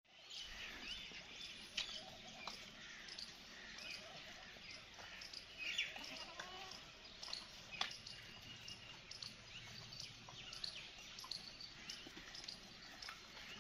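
Faint farmyard ambience: many short high chirps, a few sharp clicks, and a faint animal call about six seconds in.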